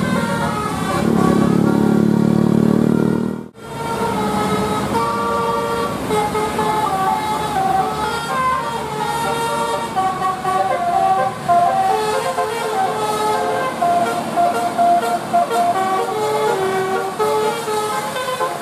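Bus telolet basuri horns playing quick melodic runs of high notes, the pitch jumping up and down several times a second. It opens with a loud, low, steady drone that cuts off abruptly about three and a half seconds in.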